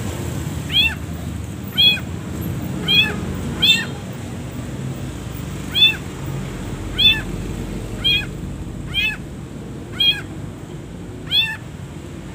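Long-tailed shrike (cendet) giving short, cat-like mewing call notes, each rising then falling in pitch, about ten of them at roughly one-second intervals with a longer pause partway through, over a steady low background rumble.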